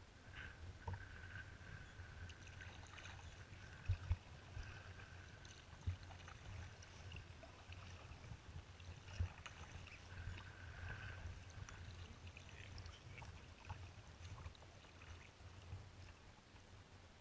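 Choppy water splashing and gurgling against a kayak's hull under way, over a constant low rumble. A handful of sharp knocks stand out, two close together about four seconds in and others near six and nine seconds.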